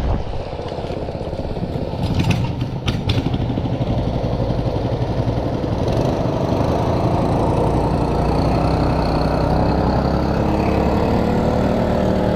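Small boat engine running steadily, a little louder and fuller from about halfway through, with a few sharp knocks about two to three seconds in.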